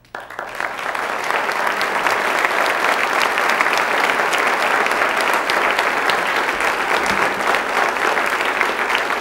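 Audience applauding: dense, steady clapping from many hands that starts suddenly.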